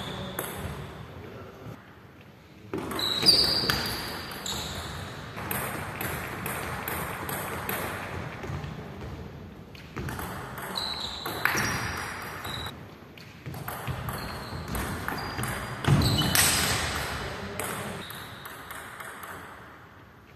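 Table tennis rallies: a plastic ball clicking back and forth off rubber paddles and the table in quick runs, with short shoe squeaks on a wooden gym floor between strokes. The exchanges stop and start again a few times.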